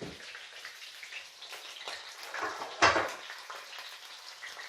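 Skin-on chicken drumsticks sizzling and crackling as they fry in oil in a pan over low heat, with one louder knock of a utensil or pan about three seconds in.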